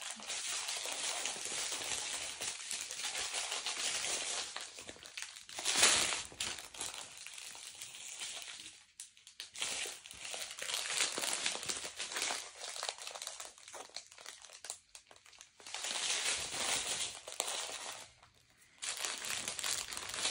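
Plastic bag of diamond-painting drills crinkling as it is handled, in irregular rustling bursts with a sharper crackle about six seconds in and brief pauses.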